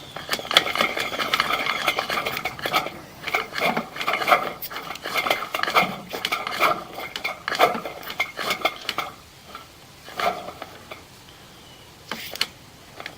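Metal clinking and rattling: quick strings of light knocks, each with a short ringing tone, running for most of the first nine seconds, then a few scattered clinks near the end.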